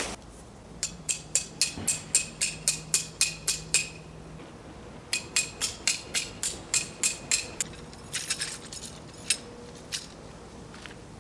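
Metal tent peg being hammered into very hard ground: two quick runs of about a dozen sharp, ringing strikes at about four a second, with a short pause between them, then a few scattered blows.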